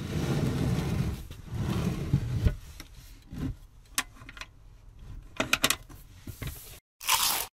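A plywood cabinet door under a camper bench seat being handled and shut. There are a couple of seconds of wood rubbing and sliding, then a few sharp clicks and knocks as the door is closed and latched.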